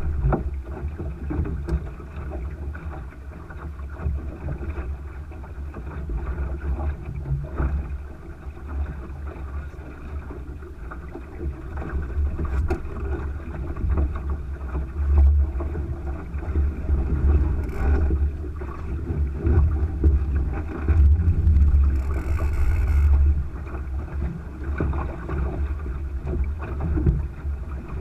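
Wind buffeting the microphone of a camera mounted on a Thistle sailing dinghy under sail, with water rushing along the hull; the rumble rises and falls in gusts, and a short hiss comes about 22 seconds in.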